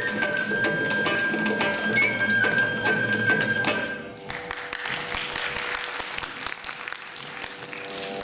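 Carnatic ensemble closing a piece: a bamboo flute holds a high note over mridangam strokes, then the music stops sharply about four seconds in. Audience applause follows, with a faint steady drone tone under it.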